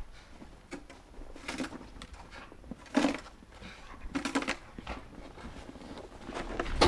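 Snow shovel scooping and flinging snow: a series of short scraping swishes roughly once a second, the loudest about three seconds in. Near the end, footsteps crunch through the snow close by.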